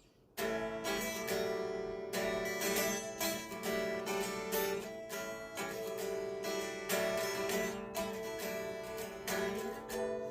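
Unplugged solid-body electric guitar, its steel strings heard acoustically without an amplifier, playing a run of chords that starts about half a second in.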